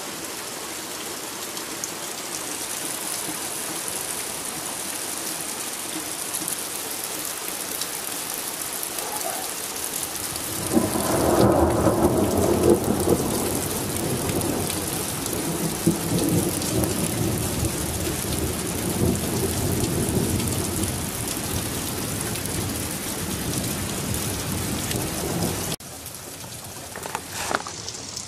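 Rain falling steadily in a thunderstorm, with a long roll of thunder breaking in about ten seconds in, loudest at first and rumbling on for about ten seconds. Near the end the sound drops suddenly and a few knocks follow.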